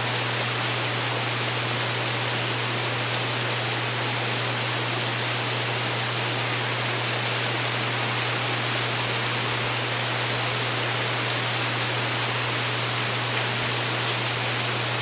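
Steady rain falling on a porch roof, an even unbroken hiss, with a constant low hum underneath.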